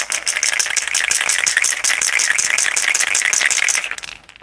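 Aerosol can of gold spray paint being shaken, the mixing ball inside rattling rapidly and evenly; the shaking stops about four seconds in.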